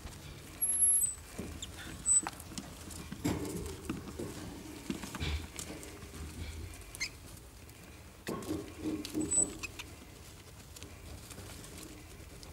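Young pet rats scrabbling and rustling about in wood-shavings bedding and a fleece hammock in their cage, with scattered small clicks and patter, a few very short high squeaks, and a couple of duller bumps.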